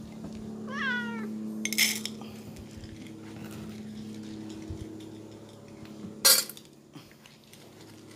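A domestic cat meows once, about a second in, while cats crowd the food bowls. The metal food bowls clatter sharply twice, near 2 seconds and again near 6 seconds, over a steady low hum.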